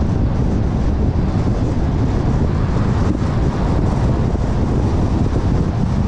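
Steady road and wind noise of a car being driven, a low rumble that stays even throughout.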